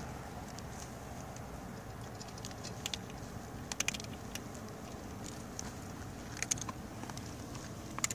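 Cats eating dry kibble from plates: a few scattered small crunches and clicks over steady low background noise.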